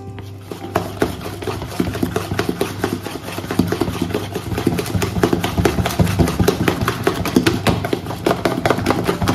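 Urad dal batter being beaten by hand in a bowl: rapid, uneven stirring strokes, several a second, over a steady low hum.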